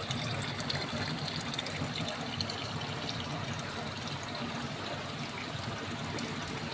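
Water trickling and flowing steadily.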